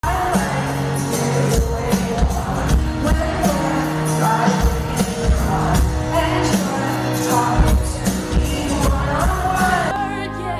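Pop song with a singer over a steady drum beat and bass, changing to a different, softer-sounding passage near the end.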